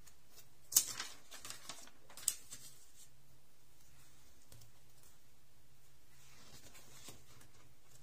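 Paper handling: pages of a spiral-bound journal and a sticker sheet being turned, with a sharp paper rustle about a second in and another just after two seconds, then only soft handling over a faint low hum.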